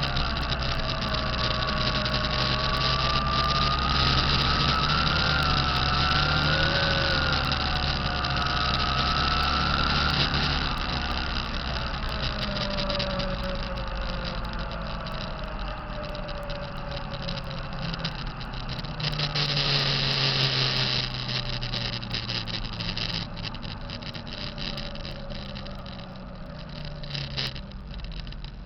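Diesel engine of a 2005 Kenworth T660 truck running, with a wavering whine from the turbocharger over the steady engine hum: the turbo sound the owner considers bad. The whine is strongest in the first half and the whole sound grows quieter near the end.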